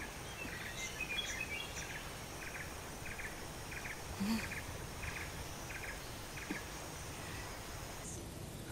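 Rural outdoor ambience of chirping wildlife: a short call repeats about twice a second, with higher chirps scattered through it.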